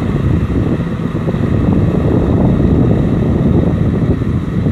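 Kubota M6040SU tractor's four-cylinder diesel engine running steadily under load as it cultivates a flooded rice paddy, heard from a distance with a rough low rumble of wind on the microphone.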